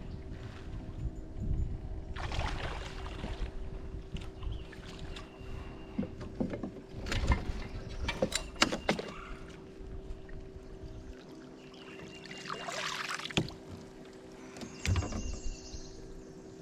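Handling noise in a fishing boat: knocks and clicks over a steady low hum, with three short spells of hiss.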